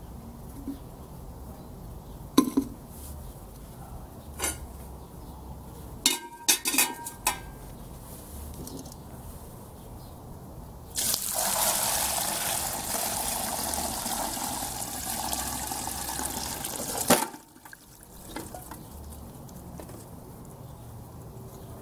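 Bone broth poured from a pot through a stainless steel conical strainer into a glass jar: a steady splashing pour lasting about six seconds that ends with a sharp knock. Before it, a few metal clinks as the pot and strainer are handled.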